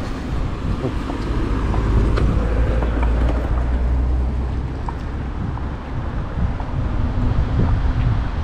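Wind rumbling steadily on the microphone of a rider moving on an electric unicycle, with tyre noise on the asphalt path. A few light knocks are scattered through it.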